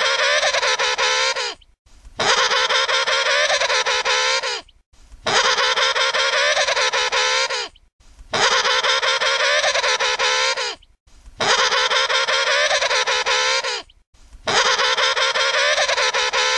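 Emperor penguin trumpeting: the same call, about two and a half seconds long, repeated about every three seconds with short gaps between, six times.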